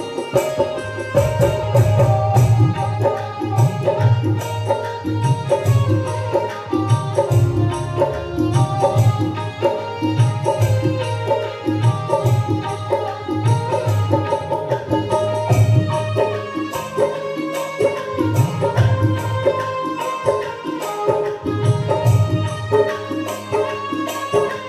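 Indian devotional-style music with tabla drumming and a heavy pulsing bass, played loud through a sound system.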